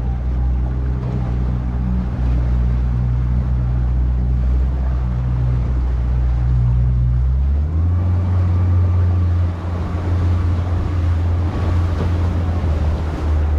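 Small boat's motor running steadily, its tone changing to a new pitch a little over halfway through, with wind and water noise around it.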